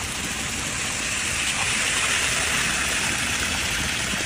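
A steady rushing noise with no clear rhythm or pitch, swelling slightly in the middle.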